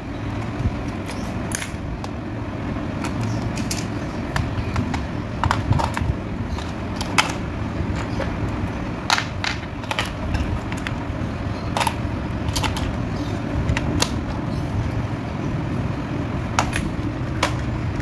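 Scattered sharp plastic clicks and taps from a toy helicopter's plastic remote control being worked on with a small screwdriver and handled, over a steady low background rumble.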